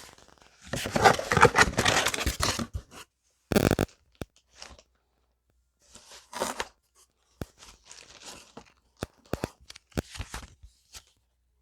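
Packaging being handled: a loud crinkling rustle for about two seconds, a short sharp burst just after, then softer scattered rustles and light clicks.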